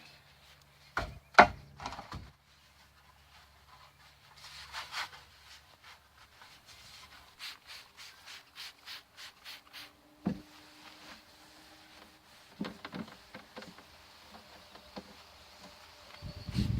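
Hand-work noises of a repair job: a few sharp knocks in the first two seconds, then rubbing and scraping, scattered light clicks and another knock about ten seconds in.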